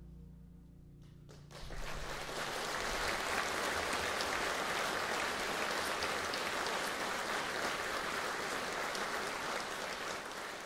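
Concert audience applauding, breaking out suddenly about a second and a half in as the last low notes of the band die away, then holding steady.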